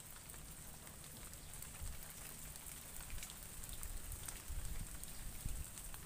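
Faint outdoor ambience: a steady high hiss with many scattered light ticks, over an uneven low rumble that swells about three-quarters of the way through.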